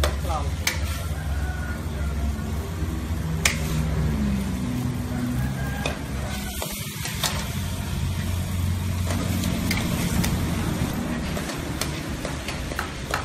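Vegetables for a curry sizzling in a pan as they are stirred, with scattered clicks of the spoon against the pan, over a steady low rumble.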